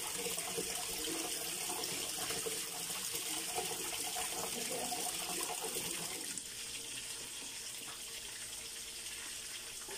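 Tap water running in a steady stream into a kitchen sink.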